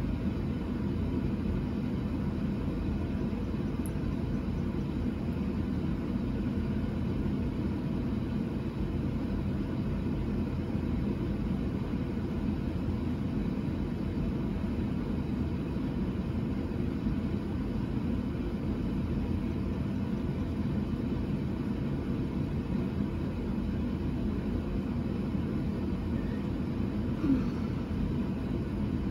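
Steady low background rumble of room noise, with one brief louder sound near the end.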